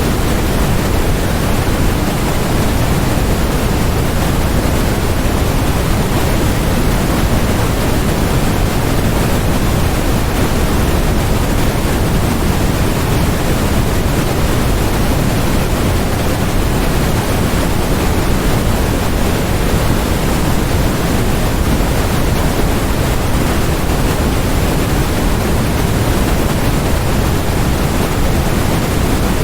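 Steady white noise track: an even, unchanging hiss with no pattern or breaks, heavier in the low end than the top.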